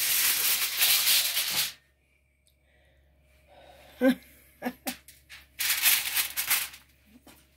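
Aluminium foil crinkling as it is handled, in two loud bursts: one lasting nearly two seconds at the start, and a shorter one of about a second near the end. A few light knocks come in between.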